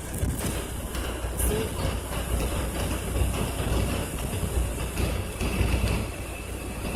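Car driving along the road, heard from inside the cabin: a steady low rumble of tyre and engine noise.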